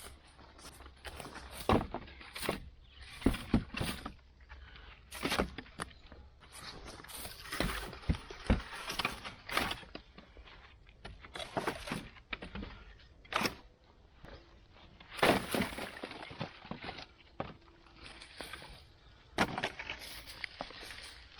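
Wood snapping and cracking at irregular intervals, one or two sharp cracks a second, some much louder than others.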